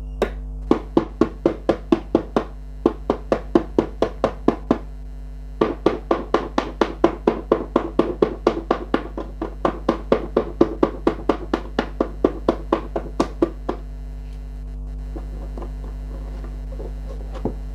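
Spinner wheel ticking rapidly as it spins, about five clicks a second, in two runs; the second run slows and stops about two-thirds of the way in. A steady electrical hum runs underneath.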